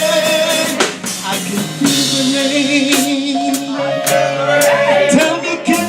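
Live gospel music: a band plays sustained chords with regular drum kit and cymbal hits, under held notes from a men's choir.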